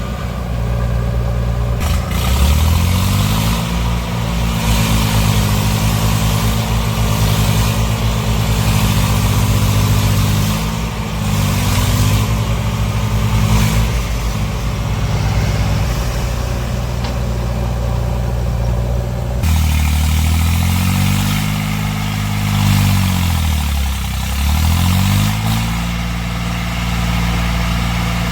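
Heavy diesel engine of farm or construction machinery running and revving, its pitch rising and falling several times. The sound changes abruptly about two-thirds of the way through.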